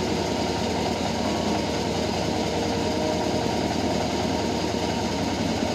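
A homemade bandsaw sawmill running with a steady, unbroken mechanical drone.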